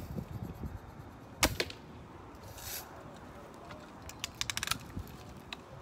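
BB gun firing: a sharp shot about a second and a half in with a second crack right after it, then a short hiss, a quick run of small clicks, and another sharp shot at the very end.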